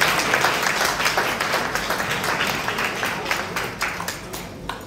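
Audience applauding, the clapping thinning to a few last claps and dying away near the end.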